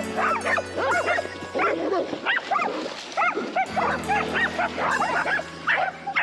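Several dogs barking and yipping in quick, overlapping calls, over background music with a steady beat.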